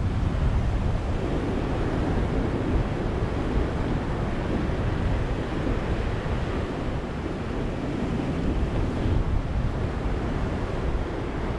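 Ocean surf washing onto a beach, a steady rush of breaking waves.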